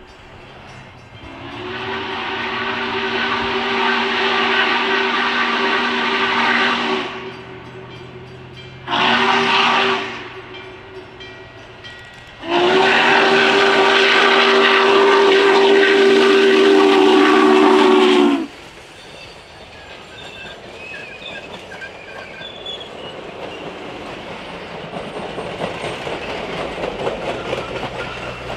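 Norfolk & Western 611's steam chime whistle sounding three blasts: a long one, a short one, then another long one, in the pattern of a grade-crossing signal. After the whistle, the rumble and clatter of the approaching train grows steadily louder.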